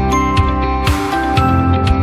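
Background music: a gentle instrumental track with sustained notes and light struck accents, with a brief cymbal-like swell about a second in.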